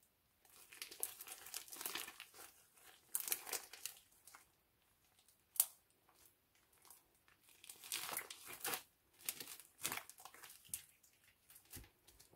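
Homemade black slime made with glue, shaving foam and shoe cream, squeezed and stretched by hand, giving irregular bursts of wet squelching and crackling as trapped air bubbles pop, with one sharp pop about five and a half seconds in. Near the end there is a soft thud as the slime drops onto the table.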